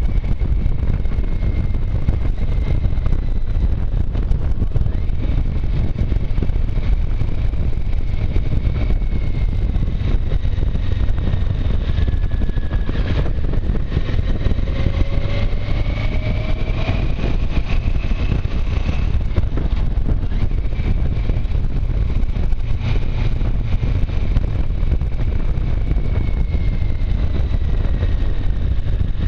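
Motorcycle riding at speed: heavy wind rush on the microphone with the engine note underneath, its pitch rising and falling as the speed changes.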